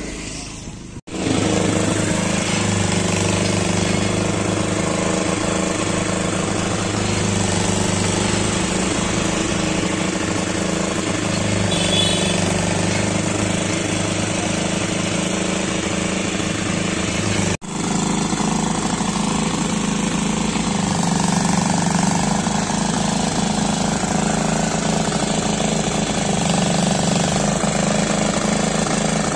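Small engine driving a roadside sugarcane juice crusher, running steadily. It drops out briefly about a second in and again just past the halfway mark.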